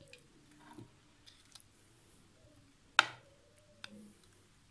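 A few faint clicks, then one sharp knock about three seconds in and a lighter one just under a second later: kitchenware being handled, a pan, tray or utensil knocking against hard surfaces.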